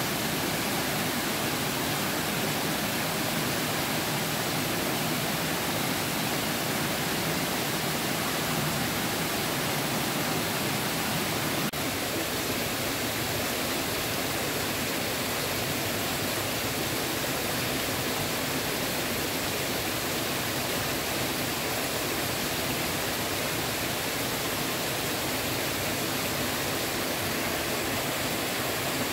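Steady rushing noise of flowing water. Its lower part drops slightly about twelve seconds in.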